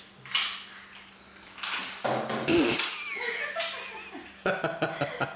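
A loud, noisy burst lasting about a second, two seconds in, then laughter in quick regular pulses near the end.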